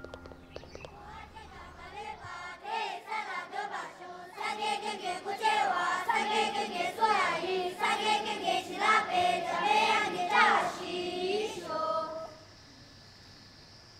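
A group of children singing a prayer together with one voice, beginning a couple of seconds in and stopping abruptly about twelve seconds in.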